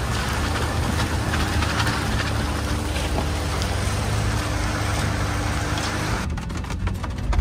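Off-road 4x4 engine running steadily as the vehicle works along a muddy trail, with a steady hiss and scattered ticks over it. About six seconds in, the hiss cuts off abruptly.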